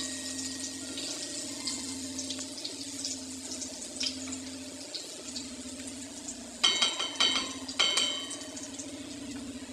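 Kitchen cooking sounds: a steady hiss over a low hum, with scattered light clicks. About two-thirds of the way through comes a quick run of sharp, ringing metal clinks, like a utensil striking a pot.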